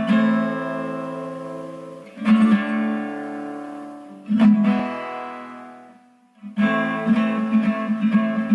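Strummed guitar music: three chords struck about two seconds apart, each left to ring and fade, then after a short break a quick, steady strumming pattern starts.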